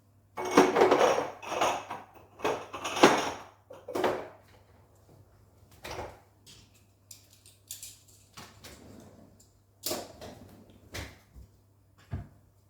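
Dishes clattering and clinking as a dishwasher is unloaded: a few dense bursts of clatter in the first four seconds, then scattered single knocks and taps as items are set down.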